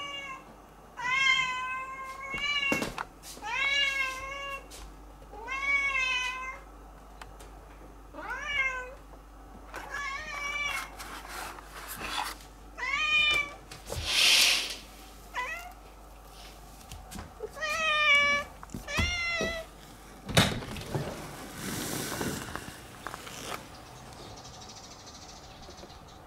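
Domestic tabby cat meowing over and over: about a dozen drawn-out meows, each rising and falling, a second or two apart. Rustling noises come once in the middle and for a few seconds near the end.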